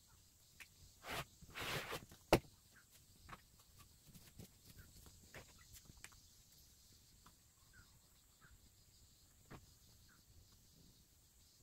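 Quiet handling noises of quilting tools on a cutting mat: cotton fabric rustling as it is smoothed, and scattered light taps and clicks as a quilting ruler is laid down and a rotary cutter picked up. A sharp click about two seconds in is the loudest sound.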